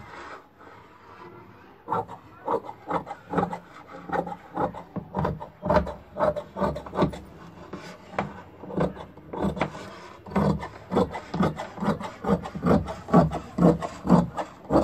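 Scissors cutting through cotton fabric against a wooden table top, a steady run of crunching snips about two or three a second, starting about two seconds in.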